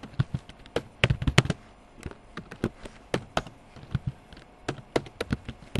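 Typing on a computer keyboard: a run of sharp, irregular keystroke clicks, thinning out briefly about two seconds in.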